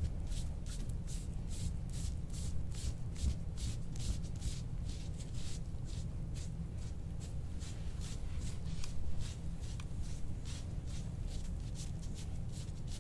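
Quick, regular rubbing strokes over the skin of a back during deep-tissue knot work, about two or three strokes a second, over a steady low hum.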